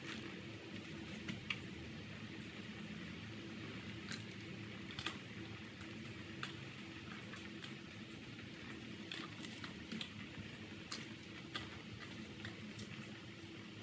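Pork bone and vegetable soup boiling in a large pot: a steady bubbling with scattered small pops.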